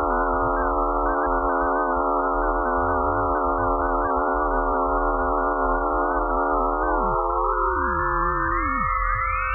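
Eerie electronic space sound, billed as Pluto's magnetic-field and radio-wave sounds: a dense cluster of steady, slightly wavering tones over a held middle tone and a low hum. About seven seconds in, the lower tones slide down and drop out while others glide upward.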